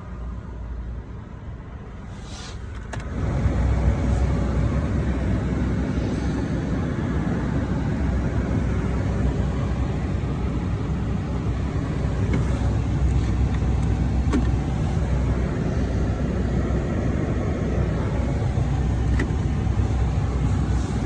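Toyota Tacoma pickup running. About three seconds in, the sound steps up to a steady, loud low rumble with a noisy haze that holds to the end.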